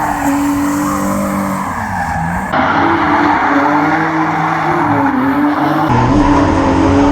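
Drift car under power, its engine held high in the revs and wavering in pitch, with tyres squealing as it slides. The sound jumps abruptly twice, about two and a half seconds in and near six seconds, as between separate drift passes.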